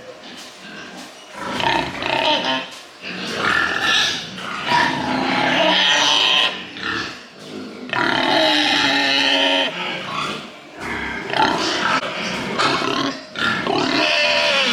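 Pigs squealing and grunting, one loud call after another, some held for a second or two.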